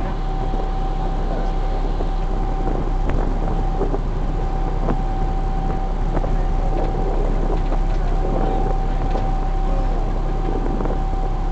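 Small river ferry's engine running steadily under way: a constant low hum with a steady whine over it, and occasional light clicks.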